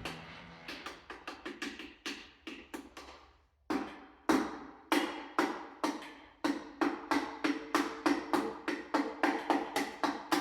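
Piston of a Ford FE 428 V8 being tapped down into its cylinder bore with a hammer handle: a run of sharp knocks, each with a short ring. They come unevenly at first, then at about three a second, and are louder after a brief pause.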